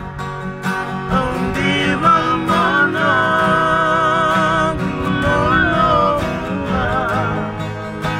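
Background music with guitar over a steady rhythm and a wavering melody line.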